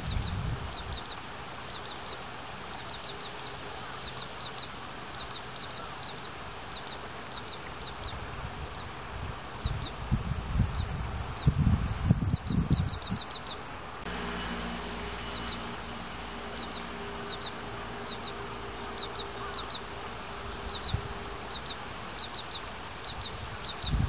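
Oriental greenfinch fledgling begging for food: short, high chirps in quick runs of two to four, repeated over and over. Wind buffets the camera's built-in microphone in low gusts, loudest from about ten to thirteen seconds in, over a steady high buzz.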